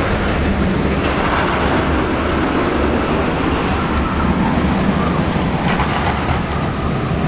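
Steady wind rumble buffeting the microphone of a camera riding in an open skyride gondola.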